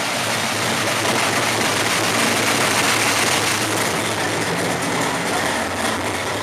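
A truck's 383 cubic-inch V8 running hard under load on a dyno, the engine noise mixed with the hiss of the rollers. The sound builds slightly and then drops away near the end as the run finishes.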